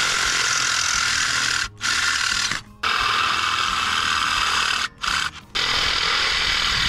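Cordless drill with a 5/16-inch bit boring through the metal rail of a Chevy Astro van seat track, opening up the old rivet holes. The bit grinds through the metal in several long runs with brief stops between them.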